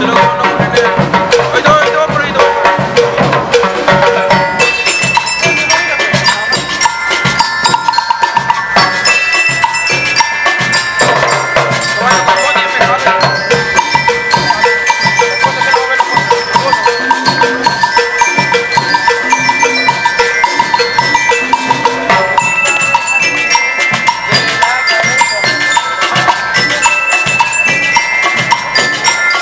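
A school rhythm band (banda rítmica) playing: bell lyres (marching glockenspiels) carry the melody in quick ringing notes over snare drums, a bass drum and a drum kit. Through the middle the lyres play long runs of fast repeated notes on one pitch.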